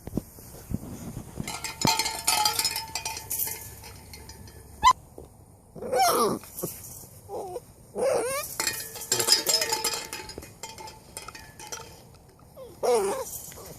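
Chocolate Labrador puppies, about seven weeks old, playing: short yips and whiny growls about six seconds in and again near the end, between two stretches of light metallic clinking.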